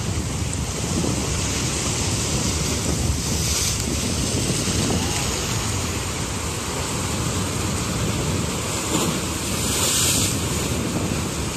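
Sea surf washing and foaming over a rocky shore shelf, with wind rumbling on the microphone. The hiss of the wash swells twice, about three and a half and ten seconds in.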